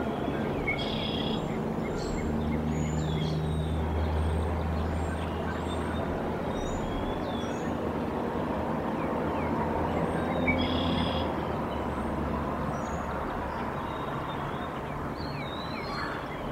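Small songbirds chirping in short scattered calls over a steady low rumble that swells through the middle and then eases off.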